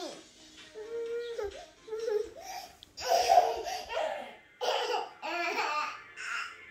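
Young child laughing and babbling in several short bursts.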